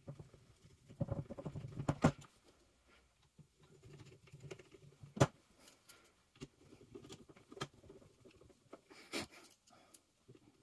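Small screws being driven back into an airsoft AK's receiver with a hand screwdriver: scattered light clicks, taps and scraping of metal on the rifle body, with one sharper click about five seconds in.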